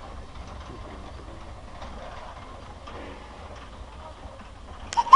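020+020 steam tank locomotive moving slowly, a faint rumble with soft beats about once a second. Near the end a loud whistle blast starts, rising briefly and then holding one note.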